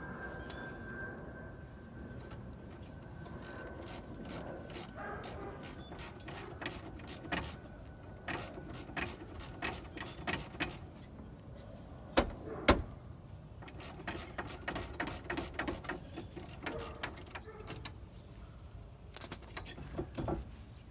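Metal hand tools at work on a car's brakes: runs of quick clicks and light clanks, with two sharp knocks about half a second apart near the middle.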